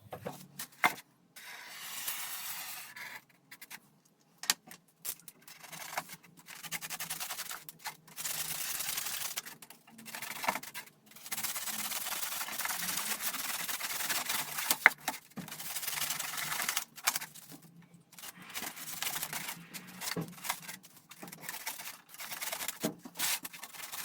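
Irregular rubbing or scraping strokes, each a second or two long with short pauses between, broken by sharp clicks and knocks.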